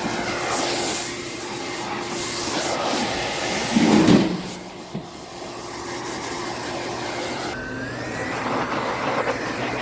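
High-velocity dog grooming dryer running, blowing air through an air purifier filter to clear out bird dander and dust. A brief louder surge about four seconds in, and near the end the motor's whine rises in pitch and then holds steady.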